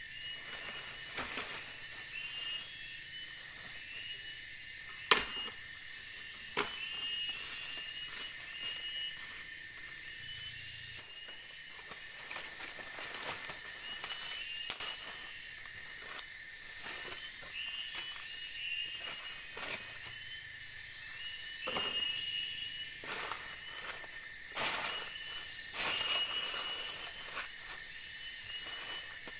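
Forest insects chirping and buzzing: steady high shrill tones with short chirps repeating every second or so. Scattered light clicks and knocks, with one sharp knock about five seconds in.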